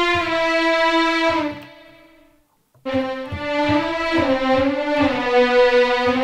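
Sampled violin section from the EastWest Hollywood Strings 18-violin legato-portamento patch playing sustained notes. A held note slides down slightly and fades out, a short silence follows, and then a new, lower held note comes in just under three seconds in and steps down a little about a second later.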